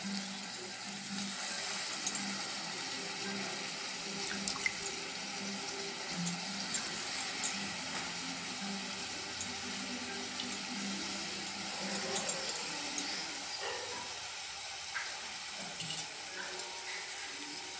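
Chopped tomatoes and green chillies sizzling steadily in hot oil in a pressure cooker, with scattered small crackles and pops from the frying.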